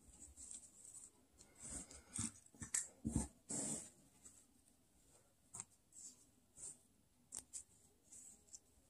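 Faint rustling and soft scraping of a crochet hook pulling yarn through as treble crochet stitches are worked, broken into short scattered scratches and taps, with a louder cluster of brushes and knocks between about two and four seconds in.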